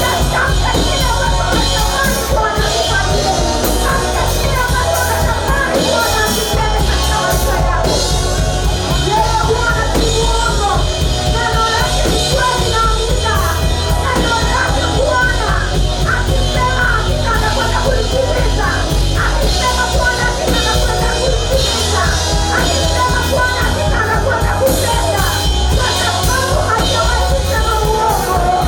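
Live worship music: voices singing over instrumental accompaniment, loud and continuous.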